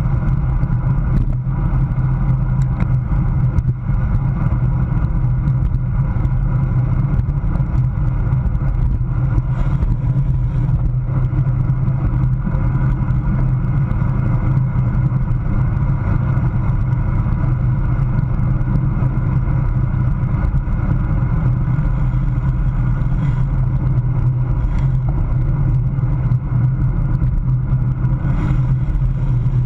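Steady wind rumble on a handlebar-mounted camera riding on a road bike at about 23 mph, mixed with tyre and road noise, with a few faint clicks.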